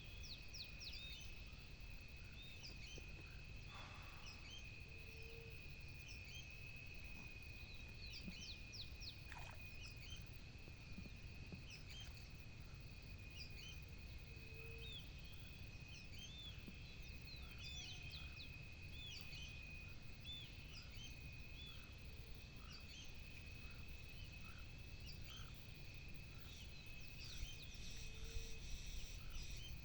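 Many small birds chirping over a steady high-pitched hum and a faint low rumble.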